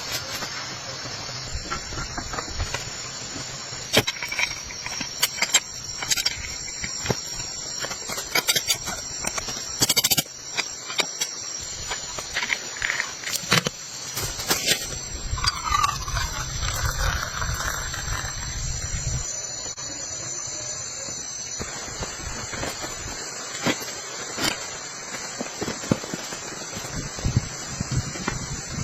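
Steady high chirring of insects such as crickets, with irregular knocks and clicks throughout.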